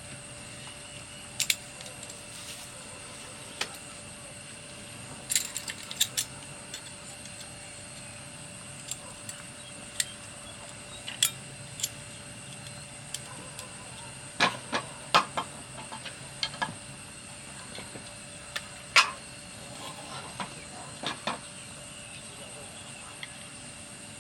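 Scattered sharp clinks and taps of camp cookware and utensils being handled, some in quick pairs, over a steady high-pitched insect chorus.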